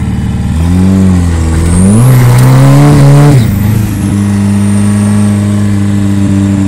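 Turbocharged Ford Fiesta engine, its turbo blowing through a carburettor, revving up under acceleration as a high turbo whistle rises with it. About three and a half seconds in the revs drop and the whistle falls away, and the engine then runs at a steady pitch.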